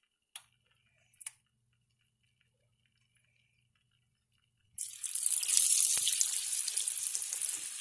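Two light clicks, then battered green tomato slices go into hot oil and the oil starts sizzling loudly about five seconds in, a steady frying hiss.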